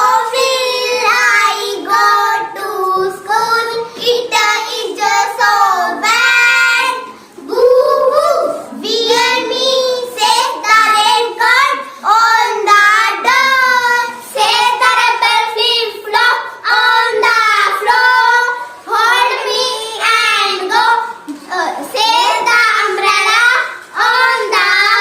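A child singing in short phrases, with brief pauses between lines.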